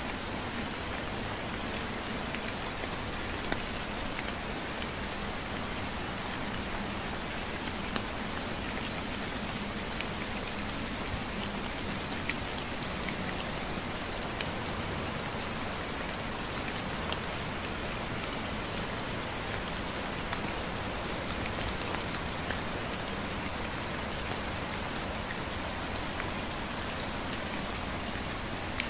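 Gentle steady rain falling on the ground and surrounding surfaces, with scattered single drops ticking close by.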